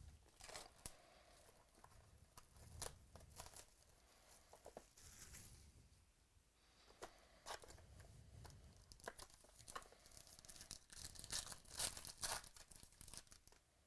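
Faint tearing and crinkling of card packaging as packs are opened and trading cards handled, with scattered small clicks and a louder flurry of rustling about eleven seconds in.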